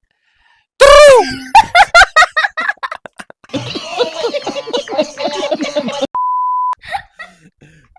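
A person makes a loud, silly vocal sound in place of a number in a counting game, then breaks into laughter, and several people laugh together for a few seconds. About six seconds in comes a short, steady, single-pitch electronic beep.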